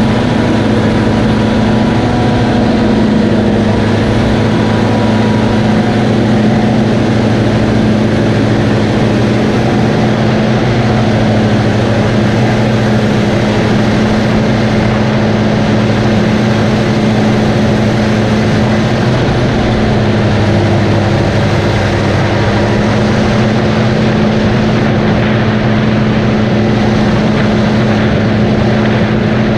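Tractor engine running steadily under load, a constant low drone with a broad mechanical rush over it; the pitch sags slightly about two-thirds of the way through, then recovers.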